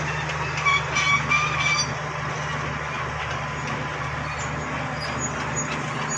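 Bulldozer's diesel engine running steadily under load, with the rattle of its tracks and a few short high squeaks near the start.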